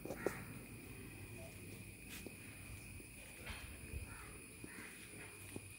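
Faint, steady high-pitched insect trill, with a few soft clicks and rustles.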